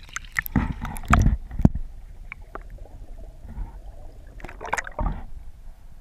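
Knocks and bumps of gear against a small fishing boat: three hard knocks in the first two seconds and another cluster near the end.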